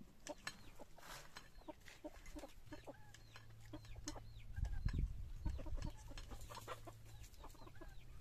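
Domestic chickens clucking in short, repeated calls, with the light clinks of forks on plates. A dull low rumble swells briefly about halfway through.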